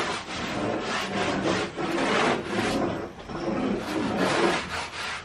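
Repeated rasping, scraping strokes of hand-tool work, uneven at about two strokes a second.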